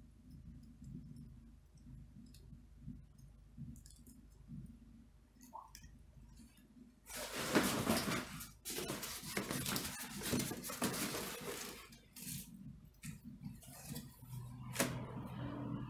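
Faint crackling of a small paper fire in a fireplace. About seven seconds in, this gives way to loud scraping and rustling as a large flat board is handled and set across the fireplace opening to draw the fire, with more rustling near the end.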